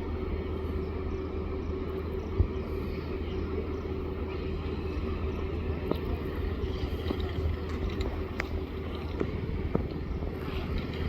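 Train running: a steady rumble with a low hum and an even mid-pitched tone. There is one sharp knock about two and a half seconds in, and scattered light clicks.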